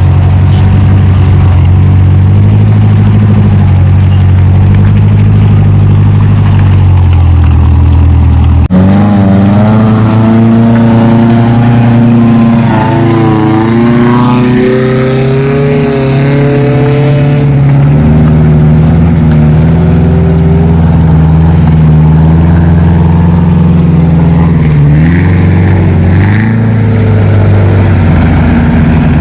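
Off-road vehicle engine running loud and steady, then, after an abrupt change about nine seconds in, revving with its pitch rising and falling before settling back to a steady run.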